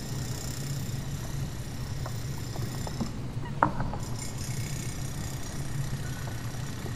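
Steady low drone of a ferry's engines underway, with a faint high hiss that breaks off for about a second midway. A single sharp knock with a brief ring comes about three and a half seconds in.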